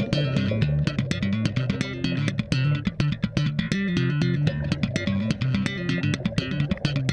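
Background music: a bass guitar line and guitar over a steady beat.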